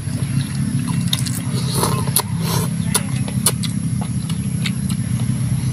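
A steady low engine hum, like a motor idling, under many sharp clicks and crackles of shrimp shells being peeled and food being chewed.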